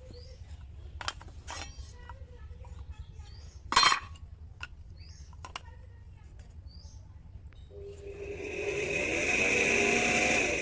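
Metal tools clinking as they are handled, with one loud sharp metallic clank about four seconds in. About eight seconds in an electric power tool spins up and runs steadily.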